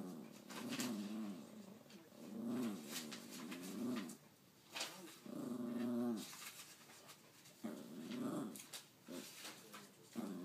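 A small dog vocalizing in a series of drawn-out sounds, each rising and falling in pitch, with short pauses between: the 'talking' that some dogs do.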